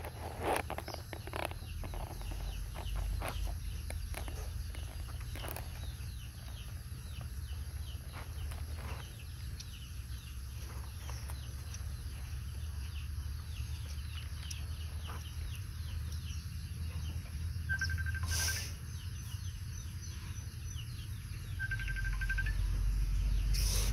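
Outdoor ambience of birds chirping and calling over a steady low rumble. A few clicks come in the first seconds, and short calls held on one pitch come twice near the end.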